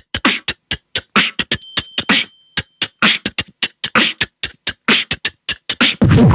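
Vocal beatbox imitation of DJ record scratching: a fast run of short, sharp mouth-made strokes, several a second.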